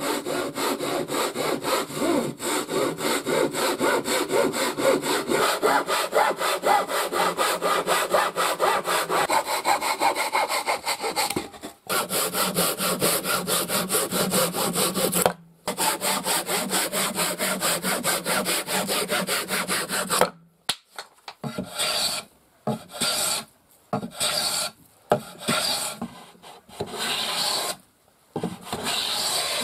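Hand saw cutting wood with rapid, even strokes, in three stretches broken by two short pauses. About two thirds of the way in, this gives way to a hand plane taking shavings off a board edge in a series of separate strokes of about half a second to a second, with short gaps between them.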